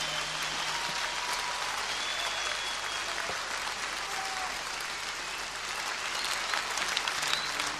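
Concert audience applauding after a song ends, with a few short high whistles over the clapping.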